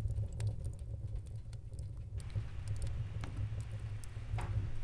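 Rain-and-fire ambience: scattered light crackling ticks over a steady low rumble. About two seconds in, a soft rain-like hiss comes in.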